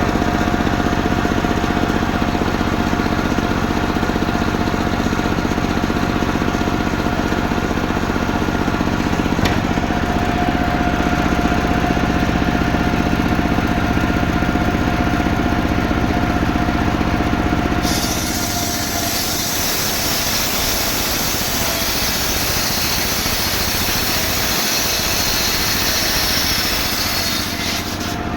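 Chainsaw sawing a coconut palm trunk into beams. The engine runs steadily at first; about 18 seconds in, a hissing cutting noise takes over and the engine's tone weakens, until just before the end.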